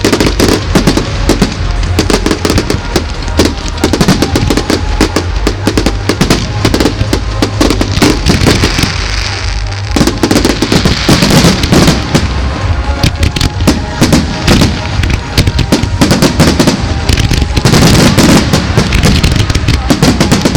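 Show fireworks going off in a dense, continuous run of rapid bangs and crackles, with music playing underneath.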